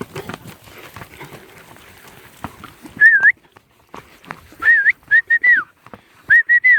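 A stock handler's short mouth-whistled commands to working cow dogs. A single whistle comes about three seconds in, then a quick string of short, wavering whistles in twos and threes.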